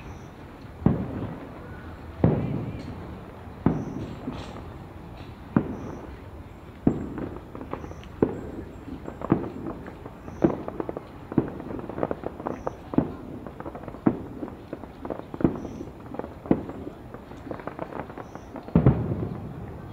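Aerial fireworks shells bursting in steady succession, a loud boom about every second or so, each dying away quickly, with smaller crackling pops between them.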